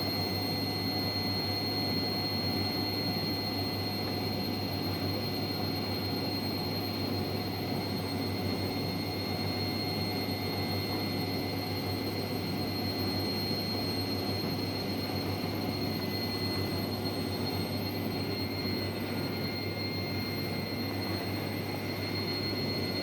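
Hotpoint washing machine spinning, a steady whir with a constant high-pitched whine over a low hum; the owner blames a very bad motor.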